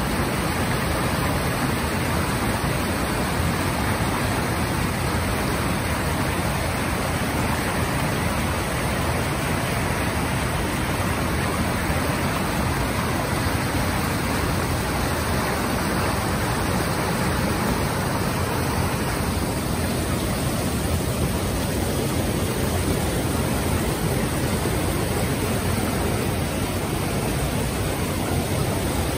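Creek water rushing and splashing in small cascades over rock ledges and boulders: a steady, even rush.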